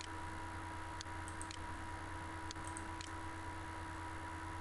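A handful of soft computer-mouse clicks, scattered through the first three seconds, over a steady electrical hum and hiss from the recording setup.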